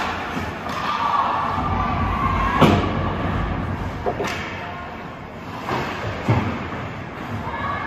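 Several sharp knocks and thuds, the loudest about two and a half seconds in, with voices calling out in a large echoing hall.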